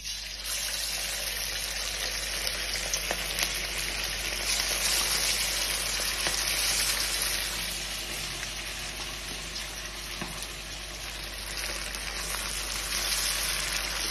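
Marinated chicken pieces deep-frying in hot oil in a wok: a steady, dense sizzle with scattered small pops.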